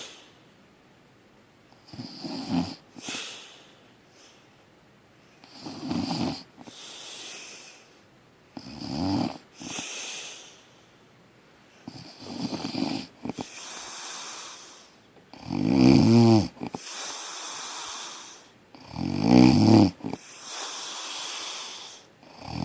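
A sleeping person snoring loudly, one snore about every three and a half seconds, each followed by a breathy hiss. The snores grow louder in the second half.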